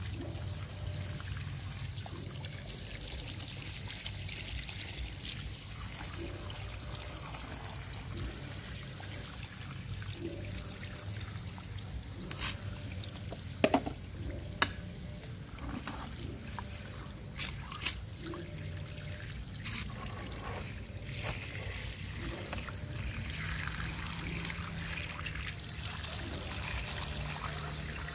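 Water running from a hose and pouring, splashing and trickling over plastic toy excavator and bulldozer as they are rinsed by hand. A few sharp knocks come about halfway through.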